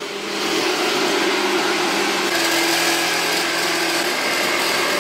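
A handheld electric power tool running steadily, a constant whirring hum over a hiss.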